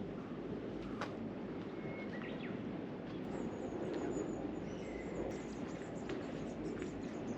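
Wild birds giving a few short whistled chirps over a steady low outdoor rush, with a thin high trill running through the second half.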